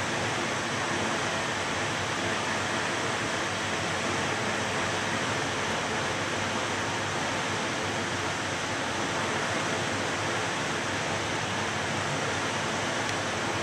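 Steady, even rushing noise of a ventilation system, with no distinct knocks or clicks standing out.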